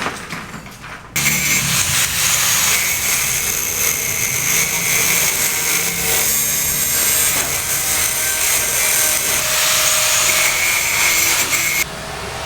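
A power tool cutting: a steady, harsh noise with a high whine that starts abruptly about a second in and cuts off abruptly near the end.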